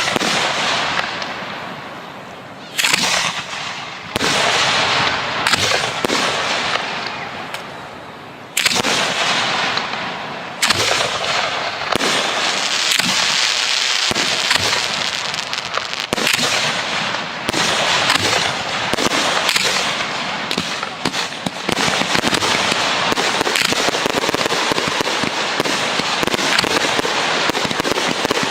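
Professional 1.3G display fireworks going off: sharp bangs of shells bursting, each followed by a long crackling, hissing trail. In the second half the crackle runs almost without a break.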